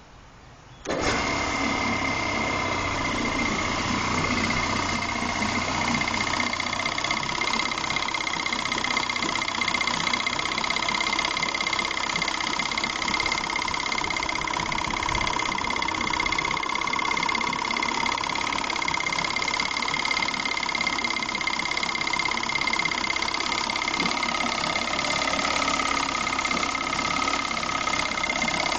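Force 50 two-stroke outboard motor starting about a second in, catching at once, then running steadily with a high steady whine over the engine note.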